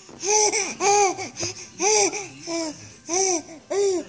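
Baby babbling: a string of about seven high, sing-song syllables, each rising then falling in pitch.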